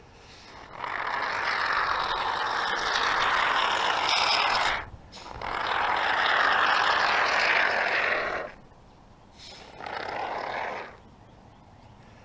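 Aerosol can of expanding spray foam hissing as foam is dispensed through its straw nozzle into the seams between insulation boards. It comes in three bursts that start and stop sharply: two long ones of about three to four seconds, then a short one near the end.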